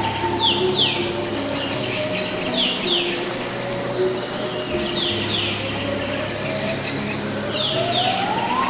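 Songbird calling in quick pairs of falling chirps, repeated every couple of seconds, over a steady bed of sustained low notes and slow rising whistles.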